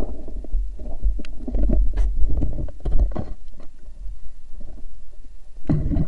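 Muffled underwater rumble of water moving against an underwater camera housing, with knocks and scattered sharp clicks and a louder burst near the end.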